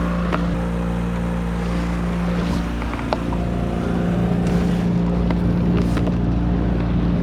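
A sailboat's motor running steadily under way, a low even drone with a hum, with a few light clicks and knocks over it.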